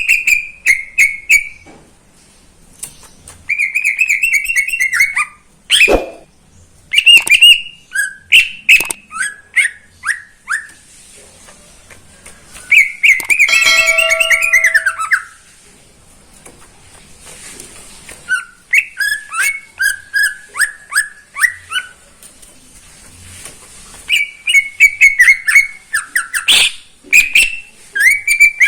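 Cucak ijo (leafbird) singing loudly in repeated whistled phrases: runs of short, sharp, quickly repeated notes alternating with longer warbling bursts, with a single sharp knock about six seconds in.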